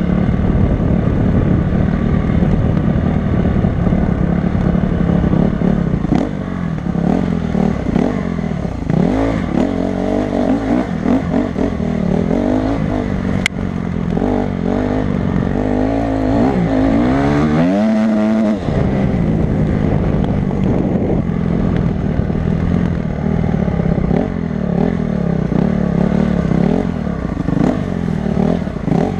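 Honda CRF250 dirt bike's single-cylinder four-stroke engine running under load, pulling steadily and then revving up and down repeatedly through the middle, with a sharp rise and sudden drop in pitch about two-thirds of the way through. A single sharp click sounds near the halfway point.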